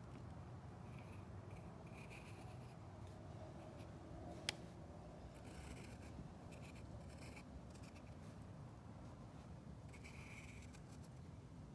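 Faint scratching of a pencil on a sketchbook page in short strokes, with a single brief click about four and a half seconds in.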